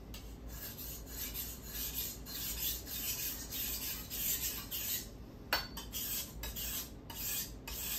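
Kitchen knife blade scraping back and forth across a wet whetstone in a steady run of quick strokes, sharpening one side of the edge. A short sharp click about five and a half seconds in.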